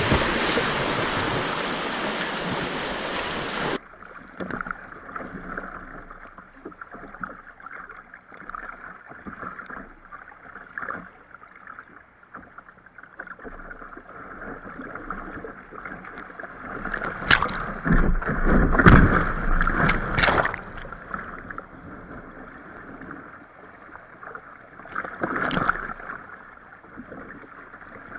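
Fast, muddy whitewater rushing around a kayak, loud at first, then dropping suddenly and turning muffled about four seconds in. Water splashes against the boat in louder surges about two-thirds of the way through and again near the end.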